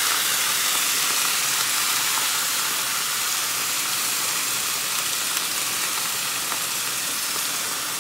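Chopped spinach sizzling in hot oil in a steel kadhai over a gas flame. It is a steady frying hiss that eases slightly as it goes.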